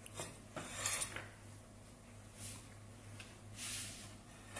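A few short scrapes and rubs of a kitchen utensil and hands on a work surface as gnocchi dough is worked and cut, over a steady low hum. The loudest scrape comes about a second in and a longer one near the end.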